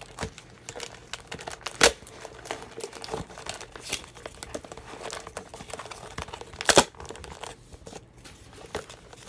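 Duct tape being pulled and pressed around plastic bottles, with crinkling of the tape and bottle plastic and two sharp, loud rips, about two seconds in and again near seven seconds.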